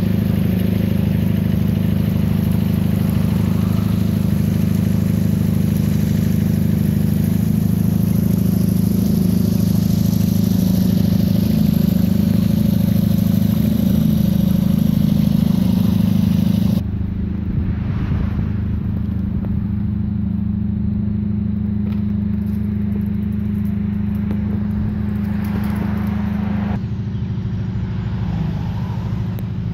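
A steady, loud low rumble with a hum in it. It drops abruptly in level about 17 seconds in and changes again near 27 seconds.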